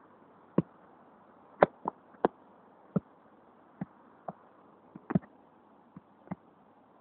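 A football being juggled on foot and leg: about a dozen dull, irregularly spaced thuds of the ball being kicked up, over a faint steady hiss.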